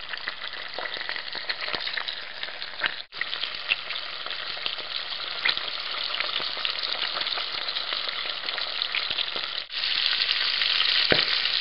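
Frog legs frying in hot oil and butter in a skillet: a steady sizzle with scattered sharp pops. It breaks off briefly about three seconds in and again near ten seconds, and is a little louder after the second break.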